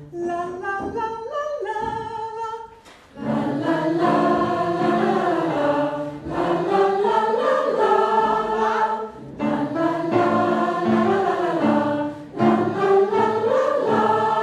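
Large amateur mixed choir singing together in phrases of a few seconds, with short breaks between them; a few single instrument notes lead in at the start.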